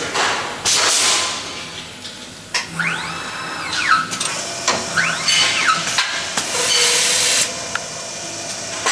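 Automatic CNC machine for aluminium frame profiles at work: pneumatic cylinders let out sharp hisses of air and knock as they actuate. Twice a motor whine rises, holds briefly and falls away, as a drive runs up and stops.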